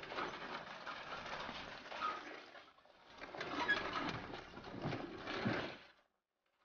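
Street background ambience, a noisy hum of a busy street, that cuts off suddenly about six seconds in.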